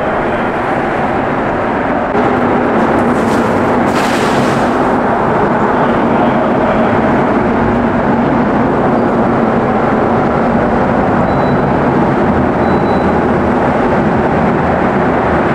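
Steady roar of road traffic on the concrete bridge overhead, stepping up slightly about two seconds in.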